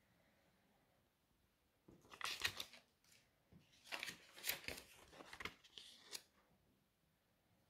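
Cotton-paper euro banknotes rustling and crinkling as they are handled, in two bouts of crisp crackles: about two seconds in, and again from about four to six seconds in.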